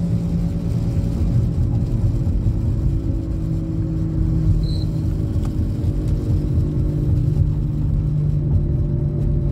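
Car driving at steady speed, heard from inside the cabin: a steady low rumble of engine and tyre noise.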